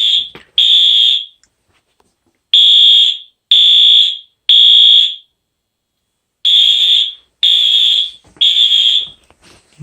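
Wheelock AS horn-strobe fire alarm horn sounding a loud, high electronic tone in the temporal-three evacuation pattern. It gives three short blasts about a second apart, a pause, then another set of three.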